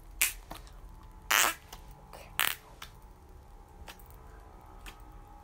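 Slime being squished and pressed by hand: three short, sharp squelches about a second apart, with a few fainter clicks after them.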